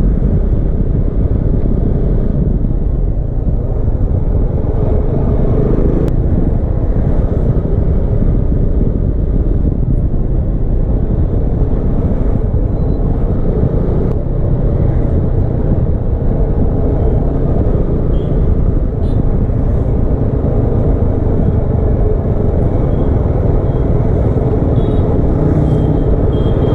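Steady low wind rumble mixed with vehicle engine and road noise while on the move at speed. It is picked up by a GoPro microphone fitted with a furry wind cover.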